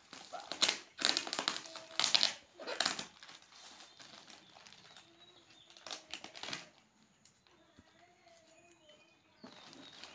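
Black plastic packaging crinkling and rustling as a taped parcel is handled and unwrapped, in several short bursts during the first three seconds and again about six seconds in, then quieter.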